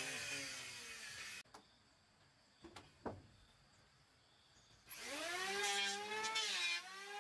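Electric power tool motor whining, its pitch sagging and recovering under load. It stops about a second and a half in, a few light knocks follow in the quiet, and it starts up again near the end.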